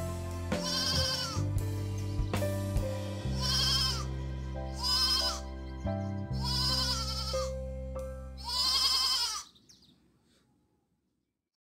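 A goat bleating about five times, each a quavering cry, over background music with a steady bass line; both stop suddenly about nine and a half seconds in, leaving near silence.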